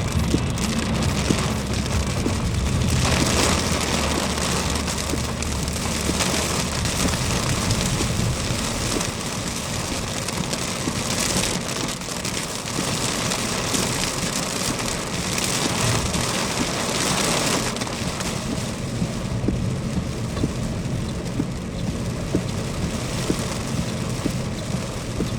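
Heavy rain falling on a car as it drives, a steady hiss, with the car's engine running low underneath; the engine fades after about six seconds.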